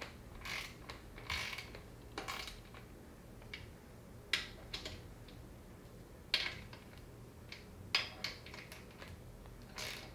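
Ratchet torque wrench clicking in short bursts, several times with pauses between, as main bearing cap bolts are snugged down on a Ford Modular V8 block.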